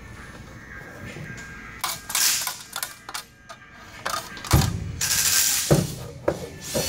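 A car radio head unit's metal case being handled and turned over by hand on a workbench: scraping and rubbing, with several knocks in the second half.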